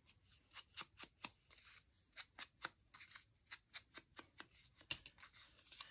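Ink pad dabbed repeatedly against the edge of paper to ink it: a quick run of faint, soft taps, about three or four a second.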